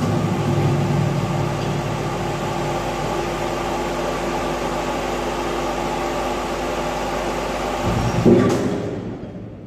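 Electric welding on a steel chassis frame: a steady arc crackle and hiss over machine hum, which stops with a short louder surge about eight seconds in, leaving a quieter hum.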